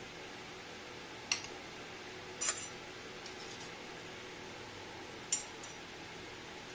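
Three brief clinks of kitchenware, about a second in, a second later, and again near the end, over a faint steady room hum.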